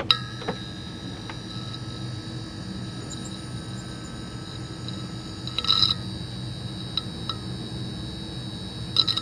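Steady electrical buzz of a neon sign, with sharp crackling clicks as it flickers, a loud cluster about six seconds in and another near the end.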